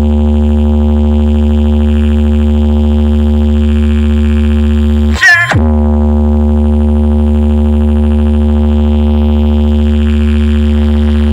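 A loud, steady synthesizer drone with very heavy bass, the kind of test track played in a DJ speaker check; about five seconds in it is broken once by a short swooping effect before the drone resumes.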